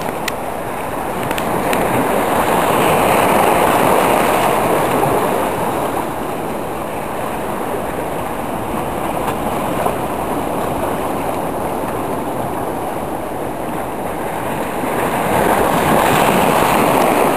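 Sea waves washing and breaking over the rocks of a groyne, a steady rush of surf that swells twice, a few seconds in and again near the end.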